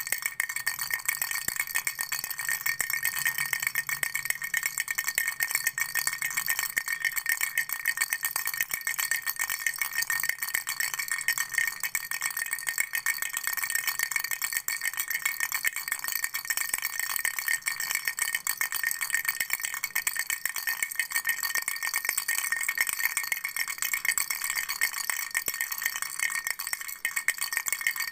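Flower-shaped baby rattle shaken continuously: fast, dense rattling with a bright, chiming ring that keeps an even level throughout.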